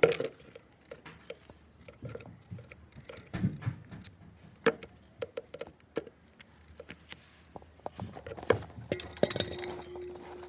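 Turnips being peeled by hand with a small knife: scattered scrapes and clicks of the blade on the root. Near the end a peeled turnip drops into a stainless steel bowl, which rings with a steady tone.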